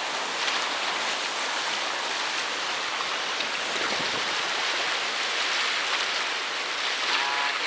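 Whitewater river rapids rushing steadily around an inflatable raft.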